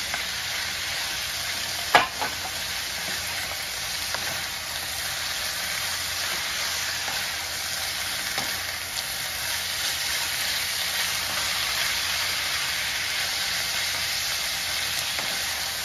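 Sliced grouse and vegetables sizzling steadily in a hot pan, stirred with a wooden spatula. There is a sharp knock about two seconds in and a few lighter taps after it.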